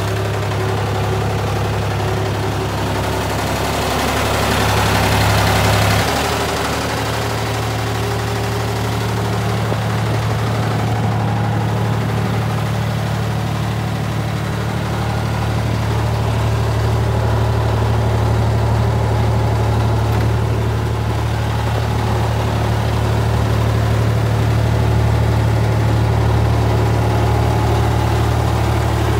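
JLG 3394RT scissor lift's engine idling steadily, its note shifting slightly about six seconds in. A brief rushing noise swells over it around four to six seconds in.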